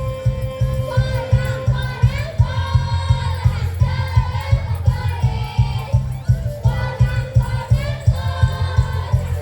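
A villancico (Christmas carol) sung by several voices over rhythmic backing music with a strong, steady beat.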